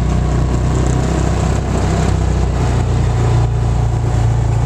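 Yamaha Rhino side-by-side's engine running steadily as it drives over snow, heard from on board.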